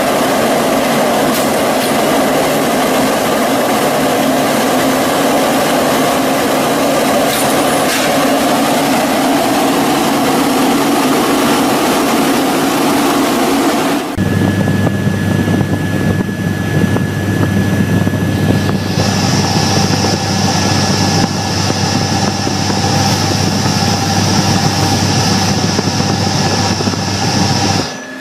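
Steady industrial machinery noise that changes abruptly about halfway to a different machine's steady hum with fixed pitched tones, a high whine joining a few seconds later.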